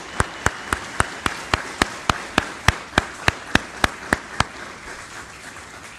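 Audience applauding, with one person's sharp claps standing out at about three or four a second. The claps stop about four and a half seconds in, and the applause fades away near the end.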